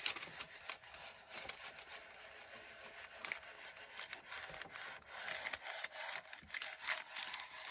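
Cricut Mini Press heat iron rubbing back and forth over parchment paper with light pressure: an irregular, papery swishing of many short strokes.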